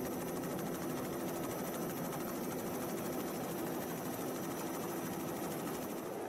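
Helicopter engine and rotor running steadily, heard from on board: a low hum with a fast, even flutter.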